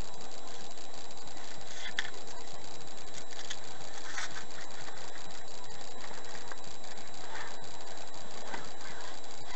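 Steady hum with a faint fast ticking in a parked car's cabin, and a few soft clicks and rustles as the occupant moves in the seat.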